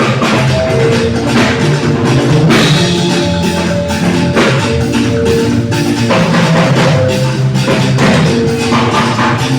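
Live band playing at a sound check: drums and hand percussion keeping a steady beat under held pitched notes.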